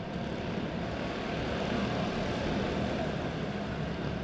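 A pack of quarter midget race cars at speed, their small single-cylinder engines giving a steady, overlapping drone.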